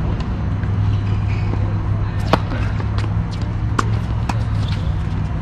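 Tennis balls struck by rackets and bouncing on a hard court during a doubles rally: a sharp pop about two seconds in, then a few fainter pops, over a steady low hum.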